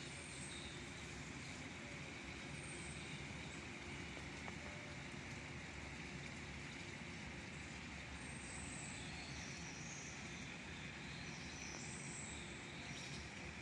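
Faint, steady outdoor ambience, an even hiss with no clear source, with a few brief high chirps scattered through it.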